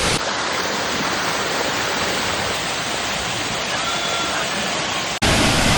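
Steady rush of waterfall and river water. About five seconds in it drops out for a moment, then comes back louder and fuller.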